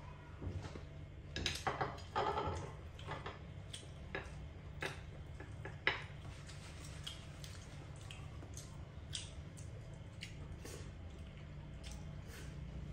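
Chopsticks tapping and scraping on plates during a meal: light, irregular clicks, busier about two seconds in, with one sharp click around six seconds.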